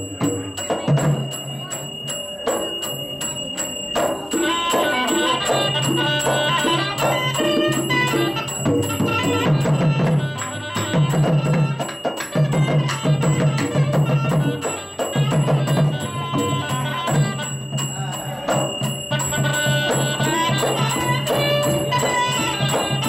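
Live traditional Thai Nora dance music: a continuous melody over drums and small percussion with frequent sharp strokes.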